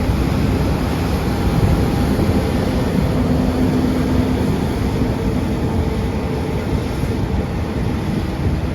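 Heavy harvest machinery running with a steady, loud, low rumble and a faint hum on top.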